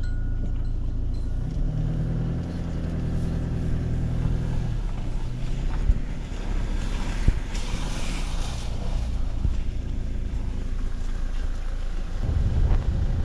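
Motor vehicle engine and road noise while driving: a continuous low drone, with a steadier pitched engine hum from about two to five seconds in and a rushing hiss swelling and fading around eight seconds.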